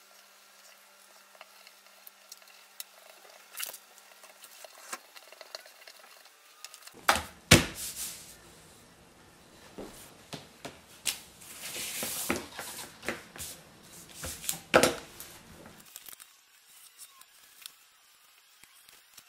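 Paper and card being handled and glued by hand: scattered light clicks and taps, then a busier stretch of louder knocks with rubbing and rustling as glue is spread and the sheets are pressed together.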